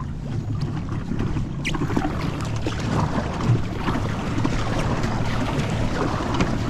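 Water churning and splashing from a pedal-drive kayak's propeller wake and paddle strokes as it is driven past at speed, growing louder about two seconds in.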